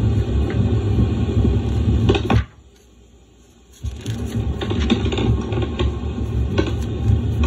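Old portable tape-recorder field recording: a heavy low rumble and hum with hiss. About two and a half seconds in, the sound drops out for over a second, then resumes with a few sharp clicks.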